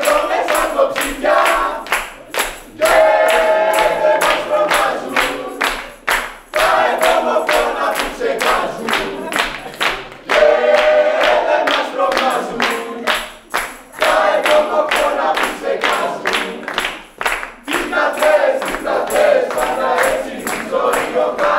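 A group of men and women singing a song together, with steady rhythmic hand clapping keeping the beat.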